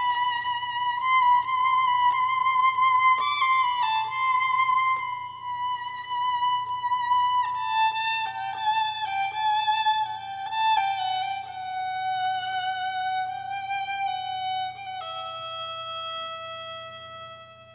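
Solo violin playing a slow melody, one note at a time, that gradually descends. It ends on a long held low note that fades away.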